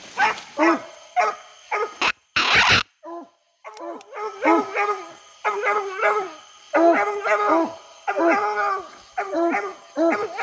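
English coonhounds bawling treed: a steady run of pitched barks, about two to three a second, the tree bark that says a raccoon is up the tree. A brief loud rush of noise cuts in about two seconds in, and the barking drops out for a moment before it resumes.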